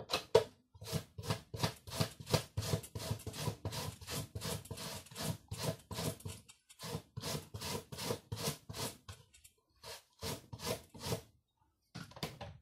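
A piece of green produce rubbed back and forth over the julienne blades of a plastic mandoline slicer, shredding it: even scraping strokes about three a second, broken by a few short pauses.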